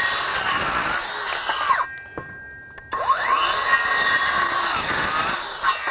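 Kobalt 24-volt 6-1/2-inch cordless circular saw cutting through a wooden board. It winds down and stops quickly on its electronic brake about two seconds in, spins up again about a second later and cuts once more, stopping near the end.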